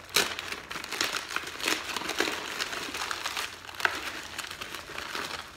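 Plastic mailer bag crinkling and rustling as it is opened and hands rummage inside, with irregular sharp crackles.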